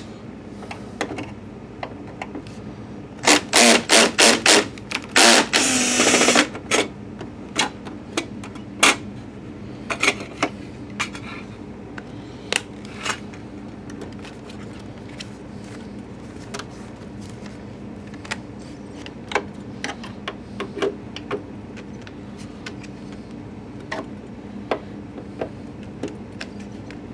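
A cordless drill-driver with a long screwdriver bit runs in several short bursts and then one longer burst, about three to six seconds in, driving screws into a projector's plastic base cover. After that come scattered sharp clicks and taps of the bit and screws against the plastic housing.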